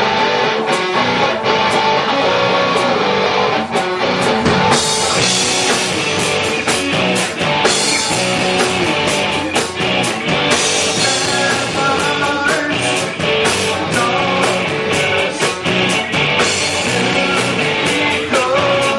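Rock band playing live: guitar over drums, with frequent sharp drum and cymbal hits.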